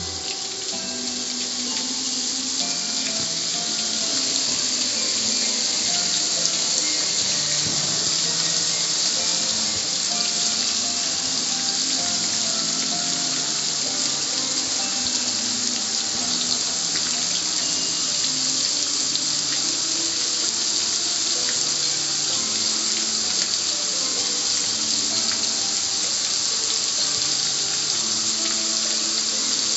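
Garden hose spray nozzle jetting water onto the lid and front panel of a gas grill: a steady, even hiss of spray and splashing, building up over the first few seconds. A tune plays quietly underneath.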